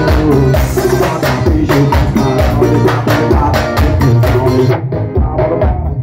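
Loud dance music with a strong drum beat and heavy bass, played over a sound system. The treble drops out for about the last second.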